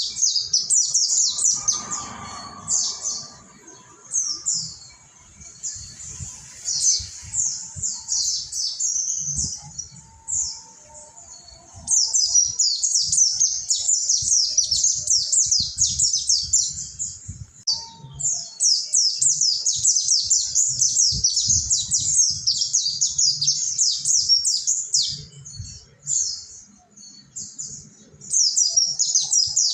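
Mountain white-eye (pleci monty) singing in long runs of rapid, high twittering chirps. The song thins to scattered phrases from about 3 to 12 seconds in, with short breaks near 18 and 27 seconds.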